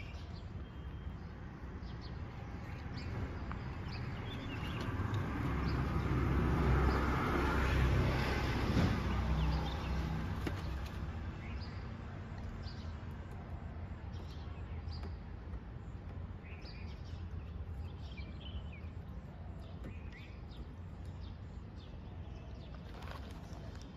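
Outdoor ambience: a vehicle passes, its rumble swelling to loudest about 6 to 10 seconds in and then fading, while small birds chirp on and off throughout.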